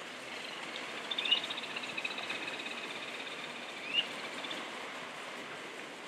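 Birds calling: a short rising whistle twice, about a second in and again at about four seconds, with a rapid high trill between them, over a steady background hiss.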